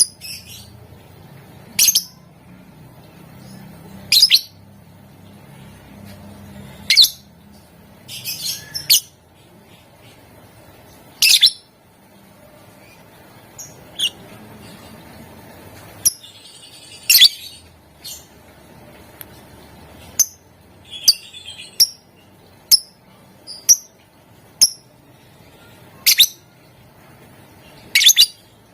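Lovebird giving loud, sharp, shrill calls at irregular intervals of a second or two, with a few short runs of chatter.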